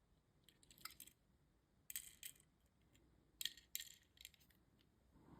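Faint clicks and light rattles of a small die-cast toy car and its plastic packaging being handled, in three short clusters about one, two and three and a half seconds in.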